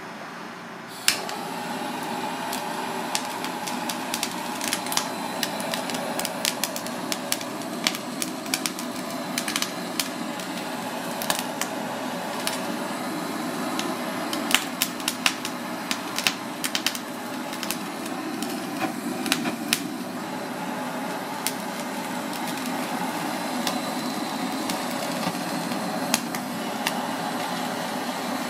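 Handheld gas blowtorch flame running steadily over cod milt (shirako) on a wire grill, with irregular sharp crackles and pops as the milt's surface blisters and chars. The flame noise starts suddenly about a second in and stops suddenly at the very end.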